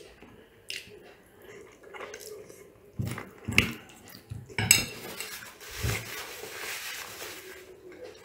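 Metal fork and spoon clinking and scraping against a ceramic bowl while eating pasta, with a few sharp clinks about halfway through as the cutlery is put down in the bowl.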